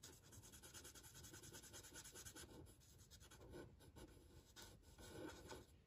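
Faint scratching of a Stampin' Blends alcohol marker's felt tip colouring on smooth white cardstock in rapid short strokes.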